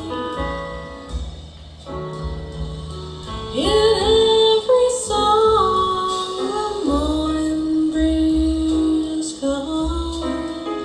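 A slow ballad: a woman's voice sings long held notes with smooth slides between them over instrumental accompaniment and a steady bass, played back through full-range speakers driven by a Tripath class-T amplifier.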